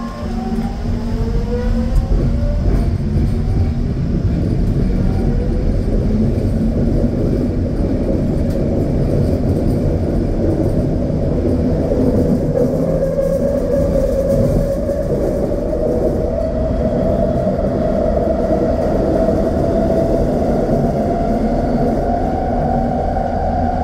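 SkyTrain car running and gathering speed: its linear induction motors whine, climbing in pitch several times in the first few seconds and again slowly through the second half, over a steady rumble of wheels on the guideway.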